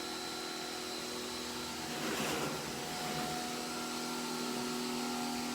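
Pressure washer running steadily: a machine hum with several held tones under the hiss of the water spray, the spray briefly louder about two seconds in.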